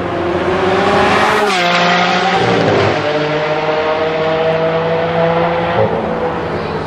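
Lamborghini Aventador's V12 engine accelerating hard as the car pulls away with other supercars, the pitch climbing and snapping down at quick upshifts about a second and a half in and again about three seconds in, then pulling steadily as it draws away.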